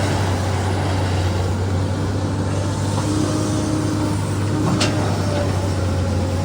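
SANY excavator's diesel engine running steadily under load, with faint whining tones that shift in pitch and one sharp click about five seconds in.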